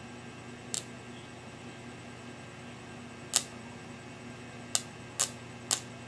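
Modified microwave-oven transformer's high-current output arcing against the thin wire bristles of a buffing wheel: five sharp crackling snaps at irregular intervals as the bristles spark and burn through. A steady low electrical hum runs under them.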